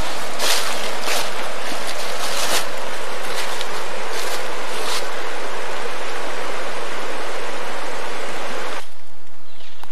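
Rushing water of a fast-flowing stream, a steady loud hiss that surges a few times early on and cuts off suddenly near the end.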